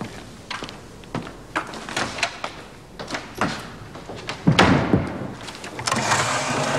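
Scattered footsteps and knocks on wood, then a heavy thud of a wooden confessional door shutting about halfway through, followed by a rustling, scraping stretch near the end.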